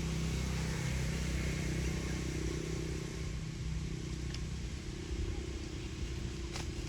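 A steady low hum like a motor vehicle engine running, over an even background haze, with a couple of faint clicks.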